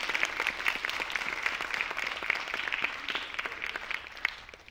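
Audience applauding, a dense patter of claps that thins and dies away near the end.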